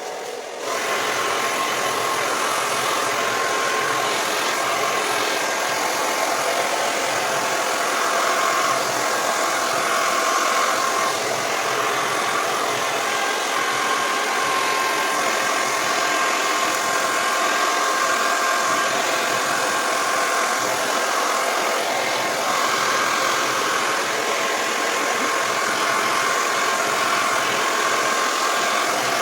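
Hair dryer running steadily: a rush of blown air with a constant motor whine. It comes up to full strength about a second in.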